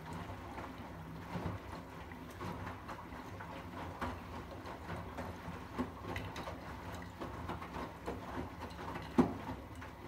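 Arçelik 8120 PMG front-loading washing machine tumbling wet laundry in its rinse cycle: water sloshing and clothes dropping inside the turning drum over a low hum, with one sharper thump about nine seconds in.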